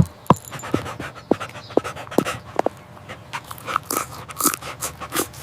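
A dog panting in quick breaths, about two or three a second, with short sharp sniff- or yip-like sounds in the first half.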